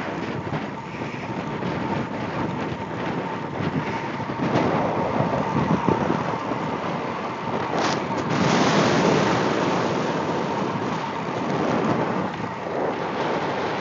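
Wind rushing over the microphone of a camera carried on a moving road bicycle, mixed with the tyre rolling on asphalt; it swells louder about halfway through.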